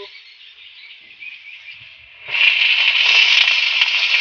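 Oil in a kadai sizzling faintly, then a loud, steady sizzle starts about two seconds in as washed leafy greens are dropped into the hot oil with the frying onions and peanuts.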